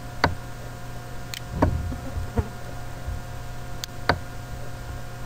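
About six short, sharp computer-mouse clicks at irregular intervals, over a steady low electrical hum.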